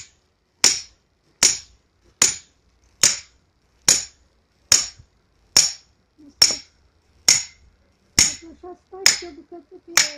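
Steady sharp blows on an axe lodged in a round of firewood, driving it down with a hammer-like tool, about twelve strikes at an even pace of a little over one a second.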